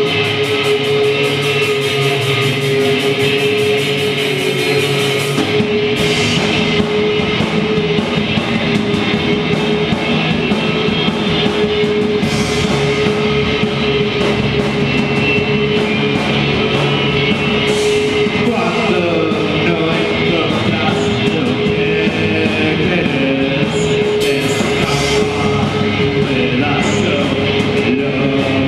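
Rock band playing live, with electric guitars and a drum kit. About five seconds in, the low end of the bass and drums comes in fuller under a held guitar tone.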